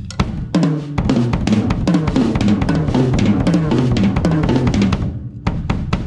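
Bass drum struck in a fast continuous roll with a DW 5000 double bass drum pedal, other drums of the kit sounding along with it. The roll starts about half a second in and stops after about five seconds, followed by a few separate hits.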